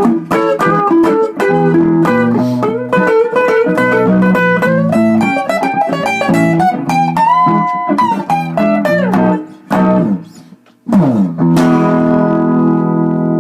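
Blues guitar playing a run of picked single notes with upward string bends. About nine seconds in it slides down and drops out briefly. A chord is then strummed and left ringing.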